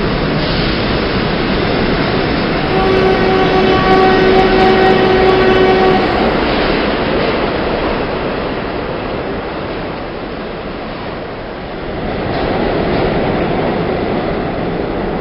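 A train running past, a steady rumble and rattle, with a horn sounding for about three seconds starting near the three-second mark.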